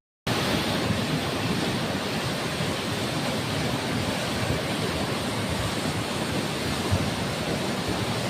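Steady, even rush of flowing floodwater, starting abruptly after a brief gap of silence.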